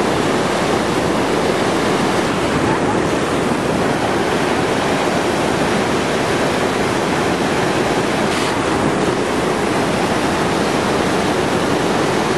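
Steady rush of water flowing down a water-park slide, loud and unbroken.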